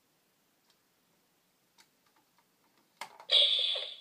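Faint plastic clicks as a hand pushes the Buzz Lightyear figure's clear dome helmet shut. A sharp click comes about three seconds in, and right after it a short, louder sound effect plays from the toy's speaker.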